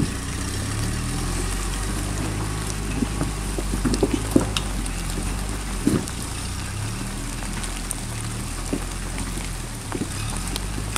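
Rock-crawling Jeep's engine running steadily at low revs as it creeps over boulders, with a few short knocks around four and six seconds in.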